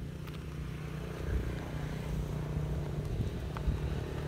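A steady low engine hum, with a few faint light clicks.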